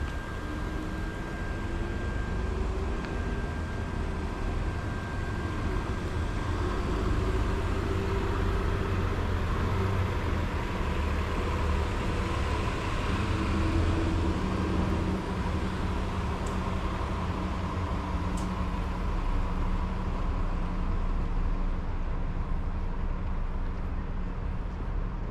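Steady low rumble of car traffic on the street, with a faint thin whine over the first several seconds.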